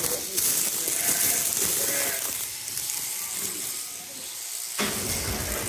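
Electric sheep shears running, a steady high-pitched mechanical buzz that is loudest in the first couple of seconds.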